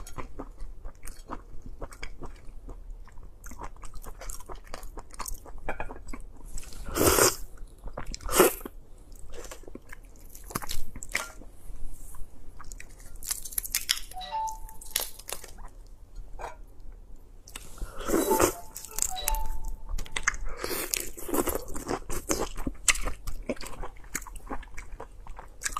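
Close-miked eating of raw red shrimp: soft wet chewing and mouth clicks throughout, with a few louder wet sounds scattered through.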